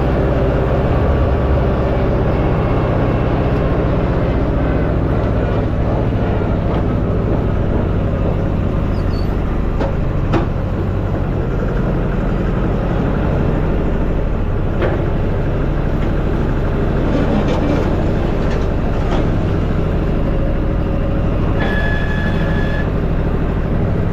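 A vehicle engine running steadily, with a few faint clicks and a brief high squeal about three-quarters of the way through.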